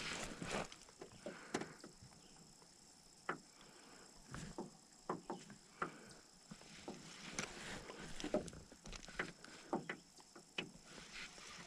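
Faint, irregular light clicks and knocks of fishing tackle in a small metal boat as a fishing rod and reel are worked through a retrieve.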